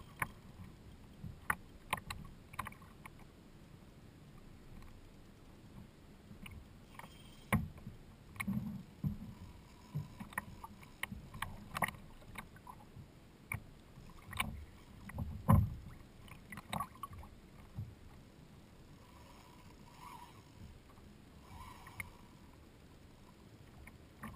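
Choppy water slapping and knocking against a plastic kayak hull over a low steady wash of waves, with irregular sharp knocks, the loudest about two-thirds of the way through.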